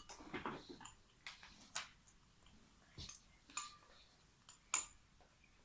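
Faint, scattered clicks and light taps of small containers and a utensil being handled while slime is mixed, a few with a brief clink.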